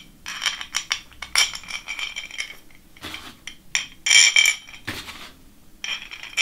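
Metal bolts clinking against a metal plate as they are dropped into its holes: a run of light, irregular metallic clicks and rattles, the loudest cluster a little past the middle.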